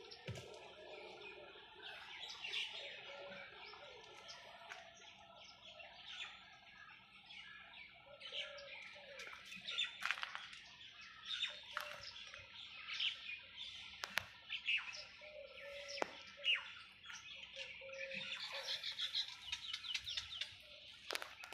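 Small birds chirping, many short high chirps scattered throughout and a dense run of chirping near the end, with a few faint clicks.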